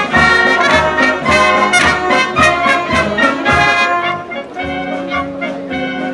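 Brass music, trumpets and trombones playing a run of quick notes that settles into longer held notes about four seconds in.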